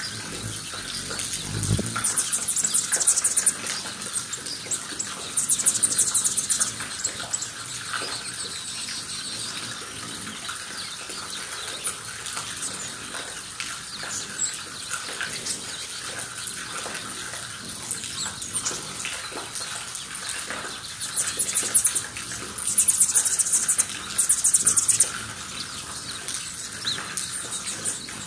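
Hummingbirds darting around the feeders, giving about five short bursts of very high, rapid buzzing chatter: twice in the first seven seconds, then three in quick succession near the end. Underneath runs a steady hiss of light drizzle.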